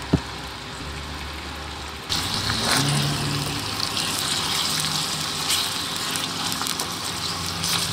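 Diced chicken thighs sizzling in hot olive oil in a stainless steel skillet and being stirred with a spatula, over a low steady hum. The sizzle turns suddenly louder about two seconds in.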